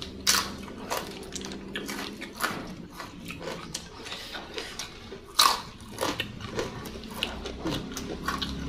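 Close-up crunchy biting and chewing of crisp fried salted fish and raw vegetables: irregular crackles, with a sharp crunch just after the start and another a little past halfway.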